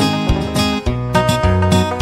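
Background music led by a plucked acoustic guitar, with notes changing in a steady rhythm.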